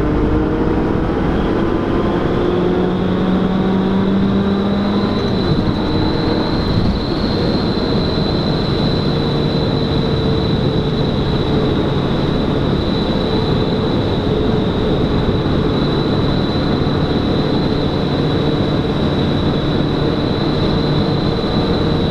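Scion tC four-cylinder engine, heard from inside the cabin, running with its exhaust cut open ahead of the axle and no axle-back muffler. It pulls under light acceleration with the engine note rising for about five seconds, changes pitch abruptly about five seconds in, then runs on at a steady lower note. A steady high whine sits over it throughout.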